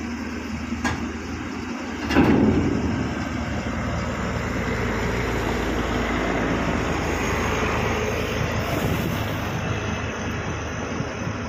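Heavy diesel machinery running steadily, with a faint click about a second in and a louder clank about two seconds in.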